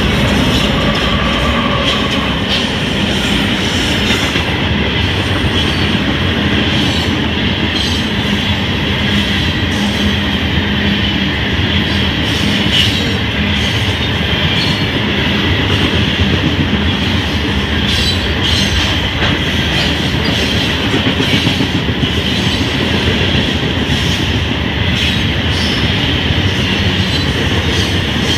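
A CSX freight train's covered hopper cars rolling past, a loud, steady rumble and clatter of steel wheels on the rails. A steady high-pitched ring runs over it, with scattered clicks over the rail joints.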